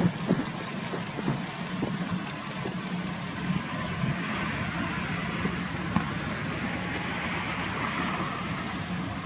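Steady road traffic noise with a low hum, a vehicle passing and fading away about halfway through.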